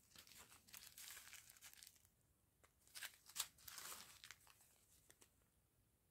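Faint crinkling of small plastic zip-lock bags of round diamond painting drills being picked up and shuffled, in two spells, with a couple of sharp ticks about three seconds in.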